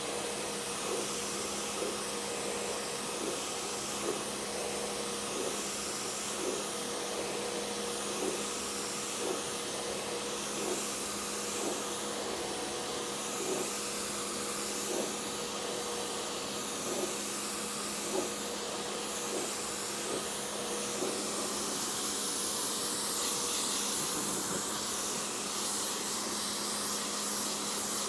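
Pressure washer running steadily, its motor humming under the hiss of the water jet as snow foam is rinsed off a car's paintwork. A faint pulse comes roughly once a second.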